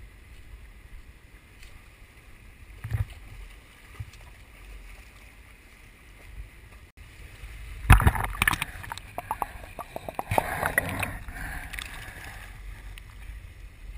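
Dog wading and splashing through shallow sea water, heard close up from a chest-mounted GoPro: low wind rumble on the microphone, then a burst of splashing and sloshing from about eight seconds in that dies down near the end.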